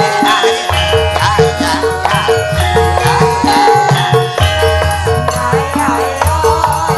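Javanese gamelan playing for a wayang kulit show. A mid-pitched metal note is struck at an even pulse, two to three times a second, over long deep notes and a wavering higher melody.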